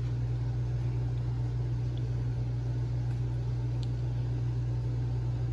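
Steady low hum with an even hiss over it, from a running machine, with two faint clicks partway through.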